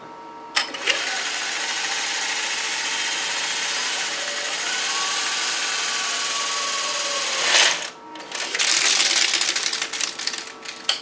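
Canon microfilm scanner fast-rewinding a roll of microfilm onto its spindle: a loud, steady whirring rush for about seven seconds with a faint whine that shifts in pitch. After a brief pause comes a second, more uneven stretch of whirring, then a click near the end.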